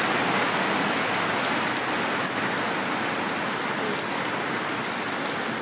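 Steady rain falling: a dense, even hiss with faint ticks of single drops.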